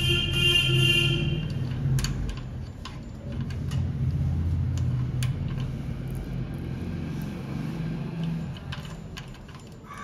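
Scattered sharp metallic clicks and taps from the exposed mechanism of an electronic rim door lock as it is handled, over a steady low hum. Near the start, three short pitched beeps.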